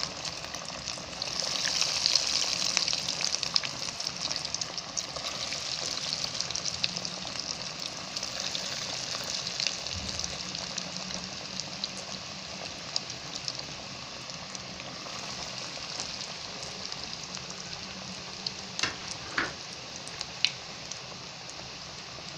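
Breaded chicken nuggets deep-frying in hot oil: a steady sizzle with fine crackling. It is loudest in the first few seconds and eases gradually, with a few sharper pops near the end.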